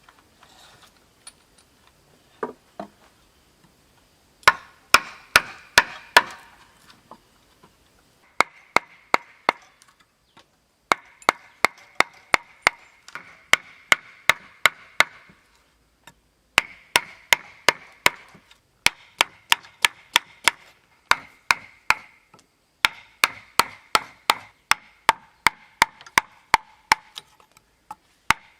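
A hand tool striking wood in quick, sharp blows, about three a second, in runs of several strikes broken by short pauses. Each blow has a short ring, lower in pitch in the last runs.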